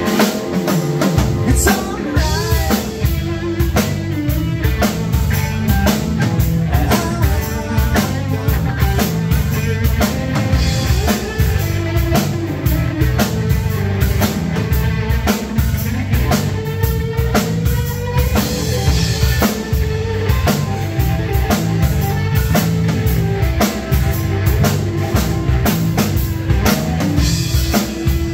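Live rock band playing an instrumental passage: a drum kit keeping a steady driving beat with bass drum and cymbals, under electric bass guitar and electric guitar, loud and full in a small room.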